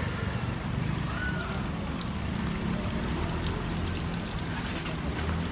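Water from a small rock waterfall trickling and splashing steadily into a garden fish pond.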